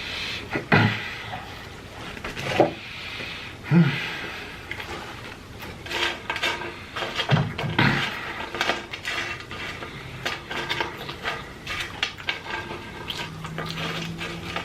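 Close-miked eating: chewing and handling food and tableware, a crackly run of clicks and knocks with a few louder thumps. A low steady hum comes in near the end.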